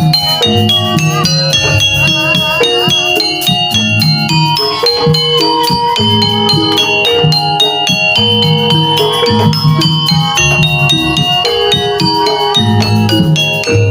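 Javanese jaranan music: gamelan metallophones playing steady, rhythmic melodic patterns over a repeating drum beat.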